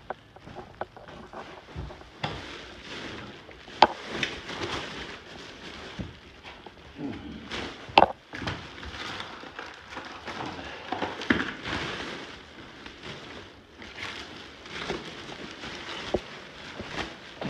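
Rubbish being handled and cleared out: irregular rustling and crackling with scattered knocks, two sharp ones about four seconds apart standing out.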